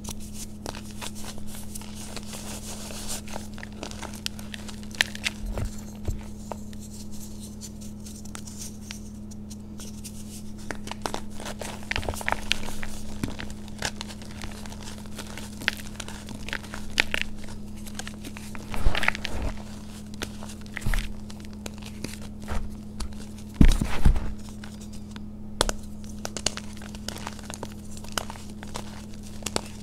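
Hands squeezing and crushing yellow reformed chalk blocks in a bowl of loose powder: irregular soft crackling and crumbling, with louder crunches about two-thirds of the way in and again a little later. A steady low hum runs underneath.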